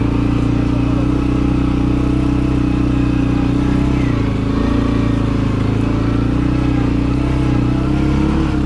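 ATV engine running at a steady speed under way, with a brief dip in pitch about four seconds in.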